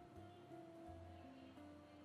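Faint background music: a slow melody of held notes that change every half second or so, over a low bass line.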